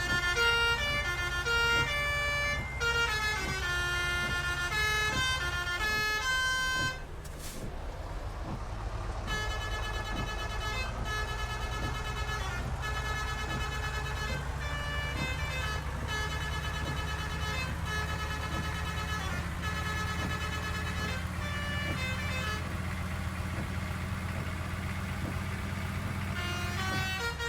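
Bus basuri (telolet) musical horn playing a tune in stepped notes over the bus engine's low running. The tune breaks off about seven seconds in and starts again a couple of seconds later.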